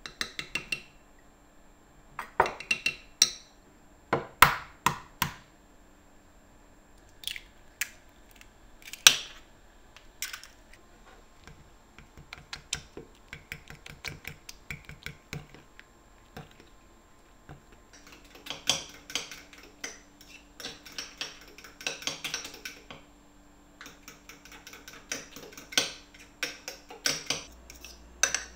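Metal spoon clinking and scraping against a white ceramic bowl while stirring a thick batter. Several sharp knocks come in the first ten seconds, and quick runs of rapid clinking fill the last ten.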